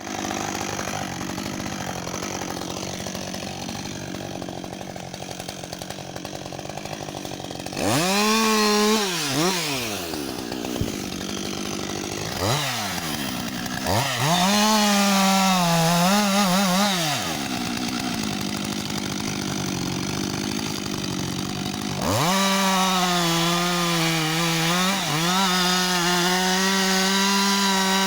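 Husqvarna 562 XP two-stroke chainsaw idling, then revved up sharply about eight seconds in and blipped up and down a few times. It drops back to idle, then runs at high revs again for the last six seconds, with small dips in speed.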